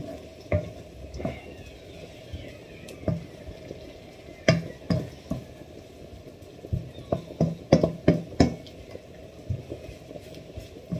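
Chopped bacon sizzling in a stainless steel pan on high heat, stirred with a wooden spoon that knocks and scrapes against the pan again and again, the knocks coming in quick clusters about halfway through and again a little later.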